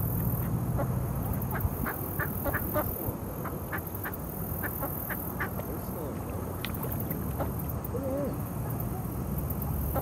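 Mallard ducks calling: a loose string of short quacks and chatter through the first half or so, then a quick rising call and a wavering call, over a steady low background rumble.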